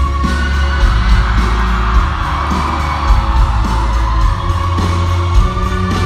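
Live indie-pop band playing loud through a festival PA, heard from the crowd: heavy bass and a steady kick drum under a held keyboard line, with a few whoops from the audience.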